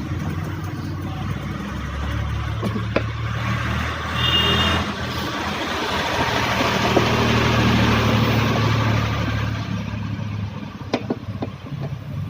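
Air compressor running with a jet of compressed air hissing, the hiss swelling and then fading over a steady low motor hum; both stop about ten seconds in. The air is blowing dust and dirt off the washing machine's spin-dryer parts.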